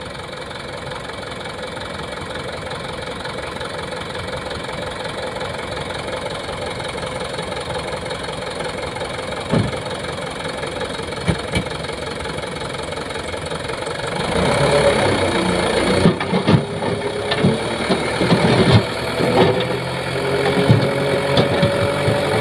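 Loaded dump truck's diesel engine running steadily at idle, then revving higher about two-thirds of the way through as the hydraulic hoist raises the bed, with knocks and clatter of sand and gravel sliding off the back near the end.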